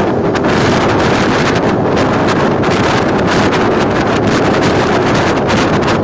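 Wind rushing over the microphone of a phone carried on a moving motorcycle, a steady loud rushing with no letup.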